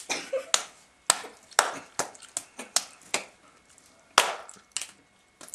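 Two people slapping their palms together in a hand-clapping game: a quick, uneven run of sharp hand slaps, roughly two a second.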